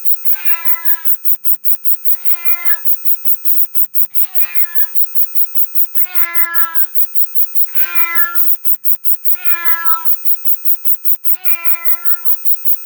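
A very high-pitched electronic tone, the so-called ultrasound sound meant to annoy cats, warbles rapidly up and down several times a second. Over it a domestic cat meows again and again, roughly once every two seconds.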